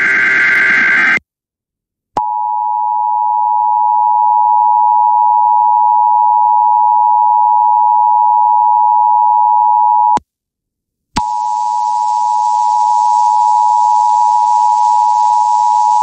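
Emergency Alert System alert: the end of a screeching digital header burst, then a loud steady attention tone near 1 kHz that holds for about eight seconds, breaks off for a second, and comes back with a hiss behind it for the last five seconds or so. This signals that a tornado watch announcement is about to be read.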